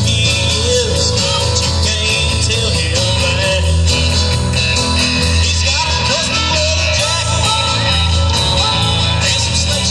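Live band playing a song: drums, bass, electric and acoustic guitars, with a lead vocal over them.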